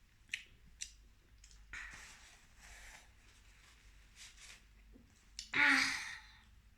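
Eating sounds: two light clicks of a utensil early, soft slurping of noodle soup, then a loud voiced sigh-like exhale near the end.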